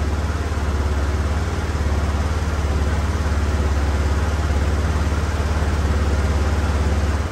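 Polaris Ranger XP 1000's twin-cylinder engine idling steadily with a low, even pulse, run to warm it up to temperature while air is bled from its cooling system.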